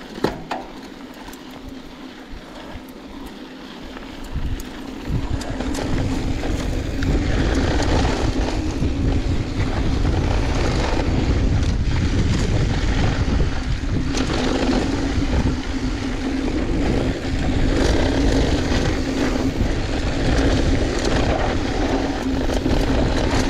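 Wind rushing over the microphone and knobby tyres rolling and skittering over loose, dusty dirt as a mountain bike descends singletrack at speed, louder from about five seconds in, with scattered ticks from gravel and a steady hum.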